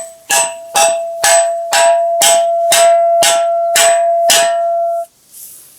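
Steel hammer striking a hard object about ten times, roughly two blows a second, each blow ringing with a clear metallic tone that carries over between strikes. The ringing cuts off abruptly near the end.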